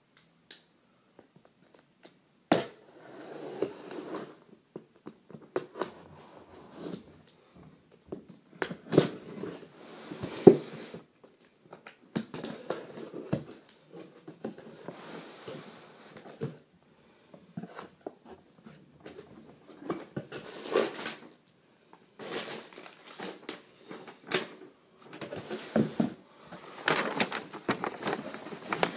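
A cardboard shipping box being opened by hand: irregular scraping and tearing of packing tape and cardboard, with a few sharp knocks, the loudest about ten seconds in. Paper rustles near the end as the packing slip is handled.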